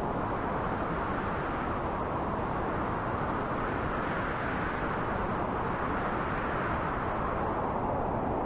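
Wind blowing steadily, an even rushing noise that swells and eases slightly.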